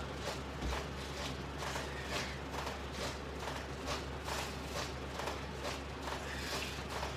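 Soft knocks or rustles repeating about twice a second, over a steady low electrical hum.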